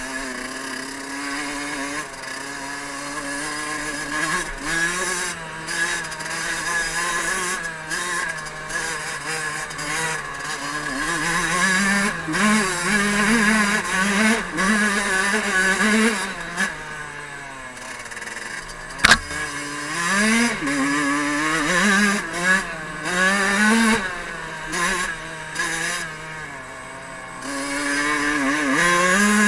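Fantic 50 Scuderia's 50 cc two-stroke engine, heard from a helmet-mounted camera, revving up and down over and over as the bike is ridden along a dirt trail. A single sharp knock about two-thirds of the way through.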